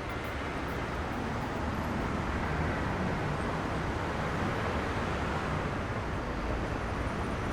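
Steady outdoor background noise: a low rumble with hiss, like distant traffic, with no distinct events.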